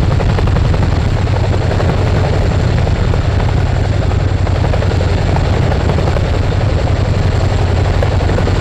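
Royal Air Force Boeing CH-47 Chinook twin-turbine tandem-rotor helicopter hovering with an underslung load on its hook. The rotor beat and turbine noise are loud and steady.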